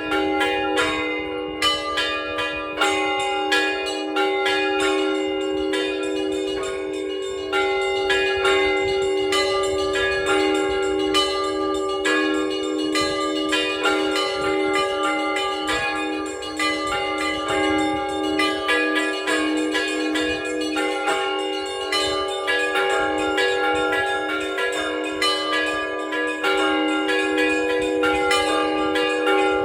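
Orthodox cathedral bells rung by a bell ringer in a continuous peal. Many bells are struck in quick succession, several strokes a second, while the low tones of the larger bells ring on beneath.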